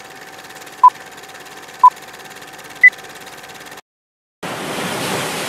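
Film-leader countdown sound effect: short beeps once a second over a fast, steady projector rattle, two at the same pitch and then a third, higher beep. The rattle cuts off suddenly, and after a brief silence a rush of ocean surf fades in.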